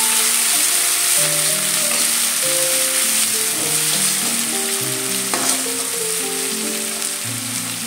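Chopped radish leaves and onion sizzling steadily in hot oil in a non-stick pan while being stirred with a spatula, with one sharp tap a little past the middle. A soft background melody of held notes plays underneath.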